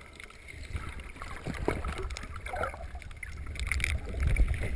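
Water sounds heard through a submerged camera while snorkeling: a low, muffled rumble of water moving against the camera, with scattered clicks and crackles. It grows louder toward the end.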